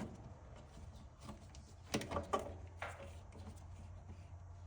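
A few light clicks and knocks from handling meter leads and parts inside an opened dryer, bunched about two to three seconds in, over a low steady hum.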